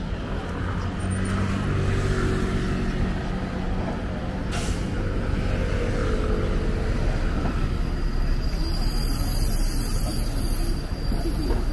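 City road traffic: a heavy vehicle's engine running close by, with a brief hiss about four and a half seconds in.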